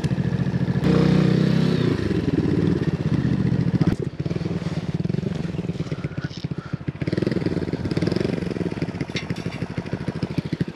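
125cc motorcycle engine running near idle, swelling louder for a moment about a second in, with a single sharp click about four seconds in.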